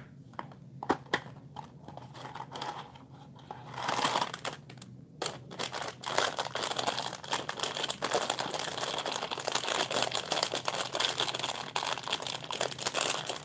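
Clear plastic bag full of small plastic building bricks being handled and crinkled, a dense crackling that sets in about four seconds in and keeps going. Before that come a few light clicks and taps from handling the small cardboard toy box.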